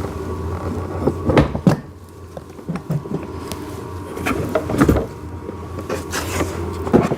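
Hard plastic parts of a ride-on toy backhoe knocking and clacking as they are handled and lined up for fitting, in short irregular clusters over a steady low hum.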